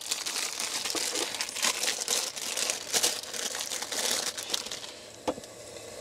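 Plastic bread-bun bag crinkling and rustling as it is opened and the buns are taken out, dying down for the last second or so, with a single sharp click about five seconds in.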